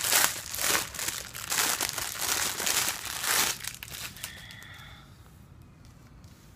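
Thin plastic baggie crinkling and rustling as it is handled and opened. The crinkling is loud for about three and a half seconds, then dies away to quiet.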